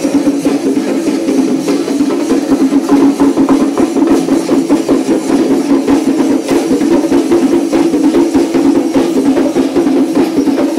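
Loud percussion music of fast, dense drumming that keeps up steadily throughout.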